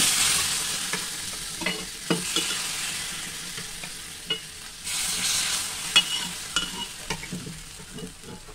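Hot tadka of mustard oil and spices sizzling as it is poured into sambhar in a pressure cooker: a loud hiss that starts suddenly and fades, then surges again about five seconds in as the rest of the spices are scraped in. Metal ladle clicks and scrapes against the iron tawa and cooker through it.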